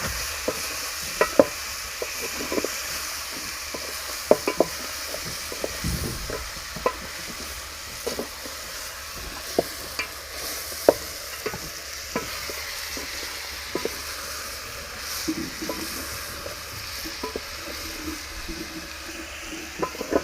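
Chopped tomatoes and onions sizzling as they fry in a pan, with a spoon stirring them and knocking sharply against the pan now and then.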